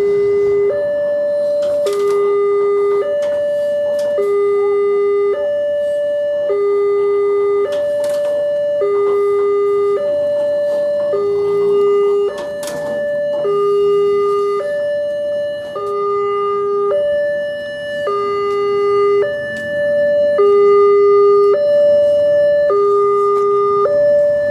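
Electronic two-tone warning alarm of a railway level crossing, sounding with the barrier down: a high tone and a lower tone alternate, each held about a second, repeating steadily.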